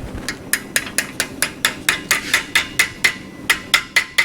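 A blacksmith's hammer striking hot steel link stock against a steel wrapping jig in a quick, even run of light blows, about four to five a second, each with a short metallic ring. The blows pause briefly about three seconds in, then carry on. This is the initial wrap of a small chain link around the jig.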